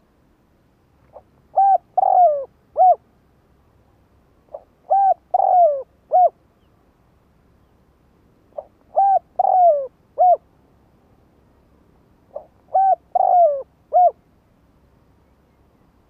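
Spotted dove cooing its song four times, a phrase every three to four seconds. Each phrase is a faint short note followed by three coos, the middle coo longer and falling in pitch.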